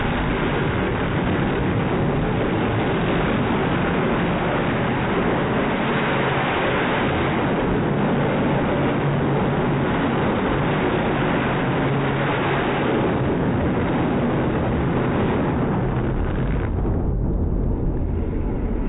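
Grave Digger monster truck's supercharged big-block V8 running steadily at high revs while the truck is held up on two wheels, wheelieing and spinning in the dirt.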